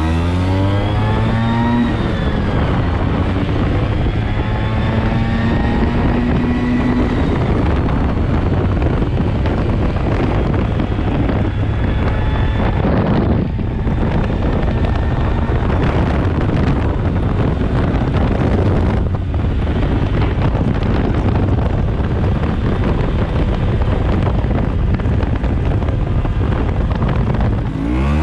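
Vespa PX two-stroke engine, fitted with a VMC 177 cylinder kit and a Polini box exhaust, accelerating hard through the gears, its note rising. Wind noise on the microphone builds with speed. There are brief dips in the sound about halfway through and again later, where it changes gear.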